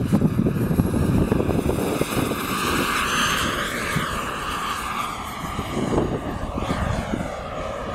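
RC model jet flying past with a rushing whine that swells about three seconds in, then fades as it moves away. Wind buffets the microphone, mostly in the first seconds.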